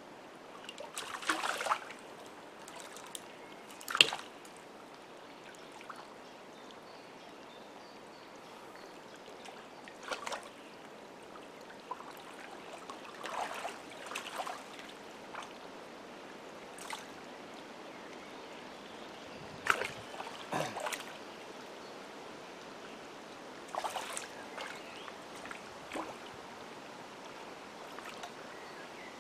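Shallow lake water lapping and sloshing around a wading angler, with scattered small splashes while a hooked perch is brought in, and a sharp click about four seconds in.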